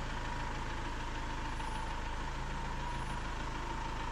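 Iveco motorhome's diesel engine running steadily at idle as the vehicle creeps forward at walking pace.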